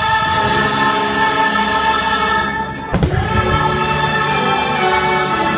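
Fireworks show soundtrack of a choir singing long held chords, changing about three seconds in. One sharp firework bang comes at the same moment.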